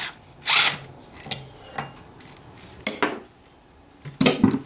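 Metal engine parts and tools clinking and clattering as they are handled and set down on the bench: a series of separate sharp clinks, with a quick cluster of knocks near the end.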